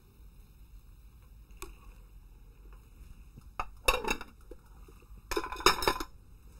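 A spatula knocking and scraping in a nonstick frying pan of potatoes and chicken, with a faint steady background between. The clatter comes in two short bursts, about three and a half seconds in and again near the end.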